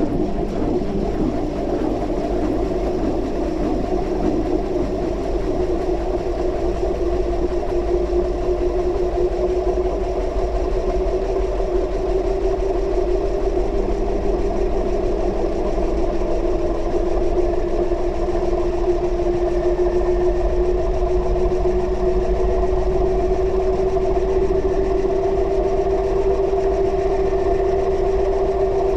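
Washing machine running, heard from inside the drum: a steady motor hum over a low rumble, slowly rising in pitch as the drum speeds up.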